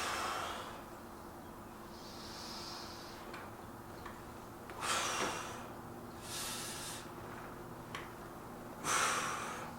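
A man's heavy breathing from exertion during a set of weightlifting reps, with a forceful breath roughly every two seconds, over a steady low hum.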